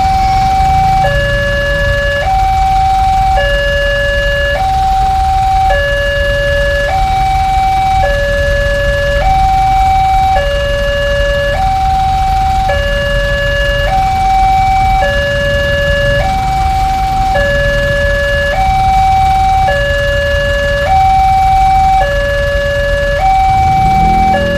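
Alkmaar-brand electronic level-crossing warning siren sounding its two-tone hi-lo alarm, switching between a higher and a lower tone, each held about a second, over a steady low rumble.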